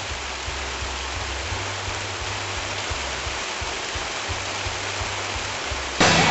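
Steady hiss of rain, with a low, uneven rumble underneath. Loud music cuts in suddenly near the end.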